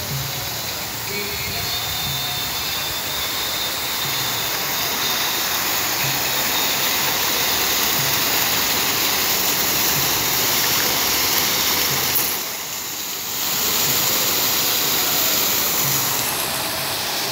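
A fountain's vertical water jets splashing back into the pool, a steady rushing hiss. It drops briefly about twelve seconds in and then comes back.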